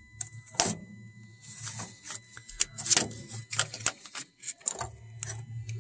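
Irregular metal clicks, taps and scrapes as a DEF doser valve, its three bolts already out, is worked loose and lifted off the exhaust aftertreatment housing.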